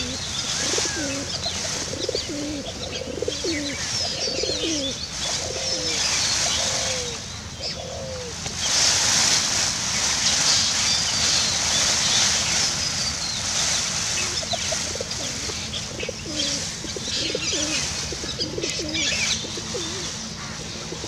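Feral pigeons cooing over and over in short low phrases, with small birds chirping higher above them; the chirping grows louder about nine seconds in.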